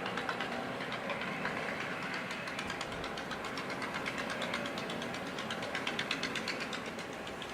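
An engine running steadily, with a rapid, even ticking over a constant rumble.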